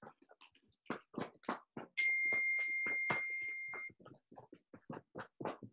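Hands rhythmically tapping and patting along the legs in do-in self-massage percussion, about four quick slaps a second. About two seconds in, a steady high ringing tone sounds for about two seconds over the tapping.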